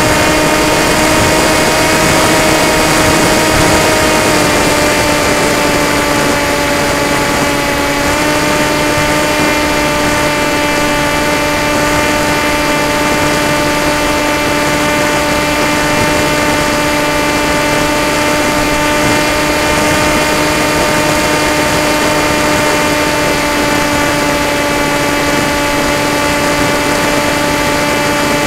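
Electric motor and propeller of an FPV model aircraft, heard from its onboard camera: a steady whine over wind rush. Its pitch dips slightly a few seconds in and rises a little again about eight seconds in.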